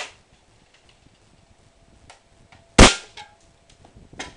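A CYMA AK47 airsoft gun fires a single sharp shot about three seconds in; the BB goes straight through a drinks can and knocks it off. Lighter clicks come at the start and near the end.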